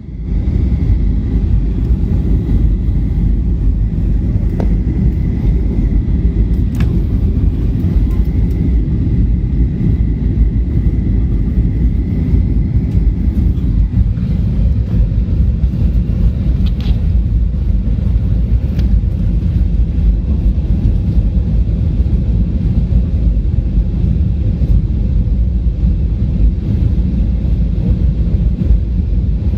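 Steady low rumble of a Boeing 737-800's engines and airflow heard from inside the cabin on approach, with a faint high tone during the first half and a few light ticks.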